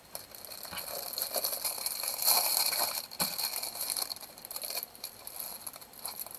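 Plastic packaging of a diamond painting kit crinkling and rattling as it is handled, loudest about two to three seconds in.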